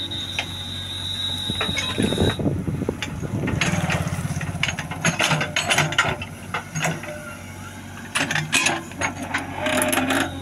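JCB 3DX backhoe loader digging a trench: its diesel engine runs steadily under load while the backhoe arm and bucket clank and rattle repeatedly as they scoop and swing soil. A steady high whistle sounds for about the first two seconds.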